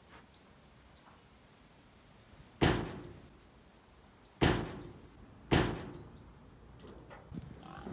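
A door banging: three heavy slams, the second and third close together, each with a short fading echo.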